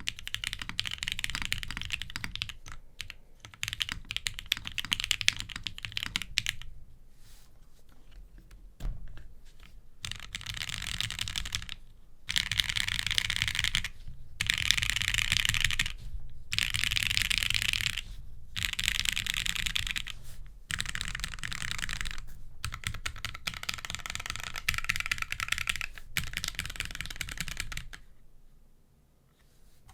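Typing on a Jane ME custom mechanical keyboard with lubed and filmed Gateron Vermillion Bird switches, PBT keycaps and an acrylic (SMA) plate with no foam. The keystrokes come in fast runs broken by short pauses, and the typing stops about two seconds before the end.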